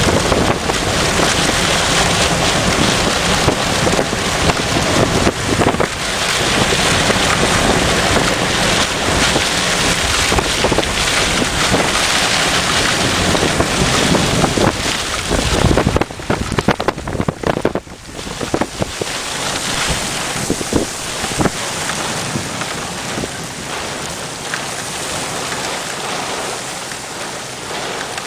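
Heavy thunderstorm rain pouring down, with wind buffeting the microphone. The rain eases a little after a choppy patch about two-thirds of the way in.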